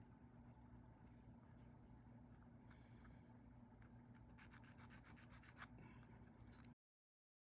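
Near silence: faint steady hum with light rubbing and a few small clicks, cutting to dead silence near the end.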